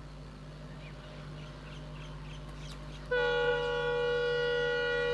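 Multi-tone air horn of a WDP4D diesel locomotive sounding one long blast, starting about three seconds in, over a low steady background.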